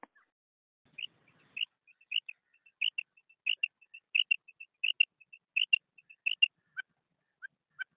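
Female common quail giving its 'krik' call: quick runs of short, sharp, high notes in tight clusters, then a few single lower notes spaced about half a second apart near the end.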